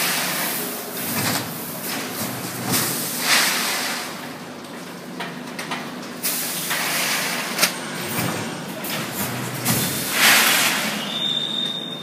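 Stainless-steel vertical rice-bagging machine running steadily, with a loud hiss of released air every three to four seconds as it cycles through its bags, and a sharp click about seven seconds in.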